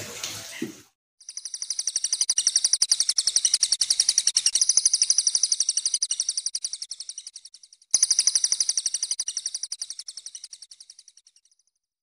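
A high, rapid, evenly pulsed bird-like trill that swells and slowly fades. About eight seconds in it breaks off and starts again loud, then fades away.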